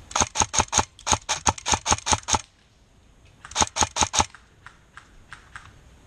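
Airsoft gun firing rapid single shots, about five a second, in strings: a long run of about ten shots, a pause, a short run of four about three and a half seconds in, then quiet until the next run at the very end.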